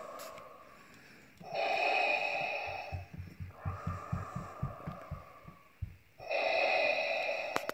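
Darth Vader's mechanical respirator breathing played on a loop from the HyTechToyz breathing-kit sound module through its speaker, very loud: a loud hissing breath, a quieter breath with a fast low rattle, then another loud hissing breath near the end.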